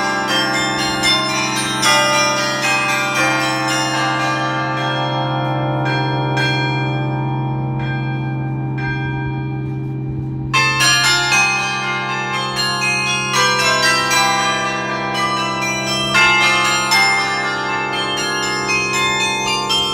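Sather Tower's carillon played from inside the bell chamber: many bronze bells struck one after another in a tune, over the lingering hum of a big low bell. The notes thin out and grow softer for a few seconds, then come back louder and thicker about ten seconds in.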